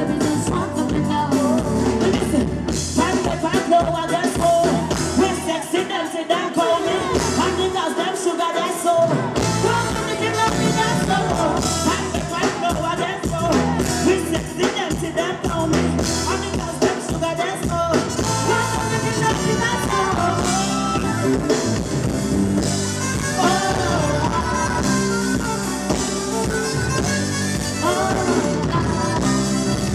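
Live band playing with a woman singing lead into a microphone. The bass drops out for a few seconds about six seconds in, then comes back.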